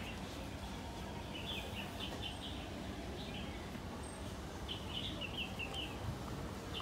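Small birds chirping in a few short runs of quick, high notes over a steady low background rumble.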